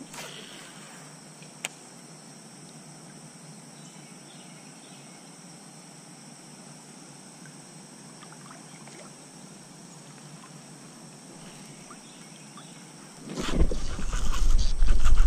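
Steady high insect drone over quiet creek ambience, with a single click a little over a second in. Near the end, loud splashing and thrashing water breaks in as a hooked bass fights at the surface beside the kayak.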